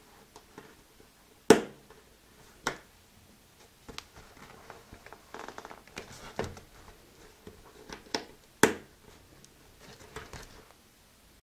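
Freshly set metal snap buttons on a bag's nylon webbing strap clicking as they are snapped shut and pulled apart: about five sharp clicks, two of them loud. Between them, soft rustling as the clear plastic bag and webbing are handled.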